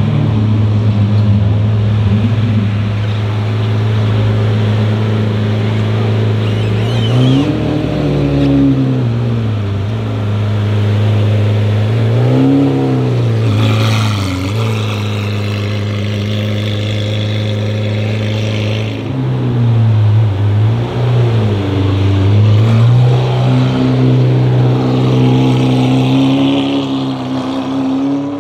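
Lamborghini Aventador SV's naturally aspirated V12 through a straight-pipe Fi exhaust, running loudly at low revs with a steady deep note. It is blipped in short revs a few times, rising and falling, and holds a slightly higher note near the end.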